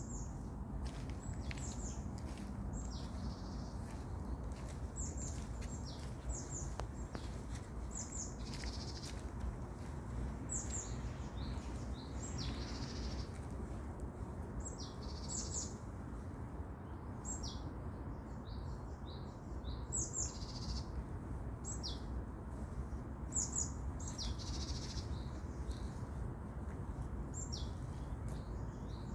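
Forest birds chirping: many short, high chirps scattered throughout, some in quick runs, over a low steady rumble.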